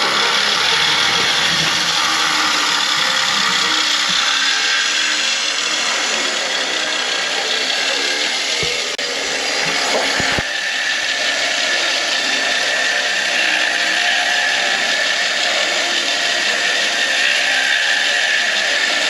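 Two-stroke chainsaw running at high revs, cutting to clear a lump off the log. About halfway through it eases briefly, then carries on at a steady high pitch.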